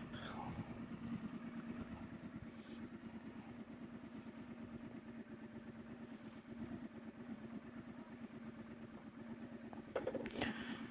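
Triumph Scrambler 1200's parallel-twin engine idling steadily at a standstill, with a few sharp clicks near the end.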